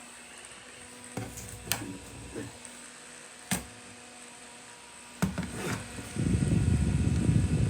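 GoFan Pro clip-on fan running with a faint steady hum and a few sharp clicks. About six seconds in, its airflow hits the microphone as a loud, low wind rumble.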